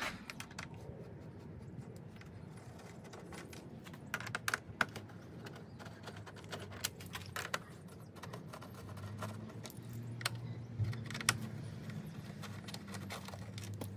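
Small metal clicks and taps from a hand-held L-shaped Torx key being fitted into and turned on the Torx screws along the top of a car's front grille and bumper, coming in a few short scattered clusters.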